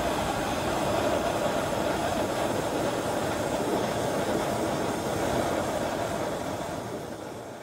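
Single-cylinder four-stroke motorcycle engine running with its exhaust port open and no pipe fitted: a steady, dense rush of exhaust pulses that fades away near the end.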